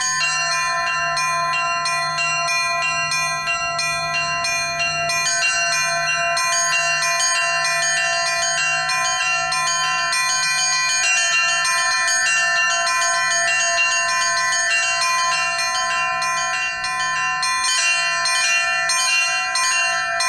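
Russian church bells rung from hand-pulled ropes: the small zazvon bells struck in quick, changing rhythmic patterns. The strikes overlap into a continuous ringing chime.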